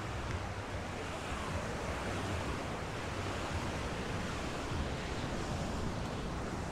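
Ocean surf washing onto a beach: a steady rush of waves over a low rumble.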